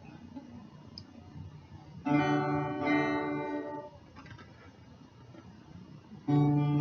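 Acoustic guitar: a chord is strummed about two seconds in and rings out for a couple of seconds before fading. Strumming starts again near the end.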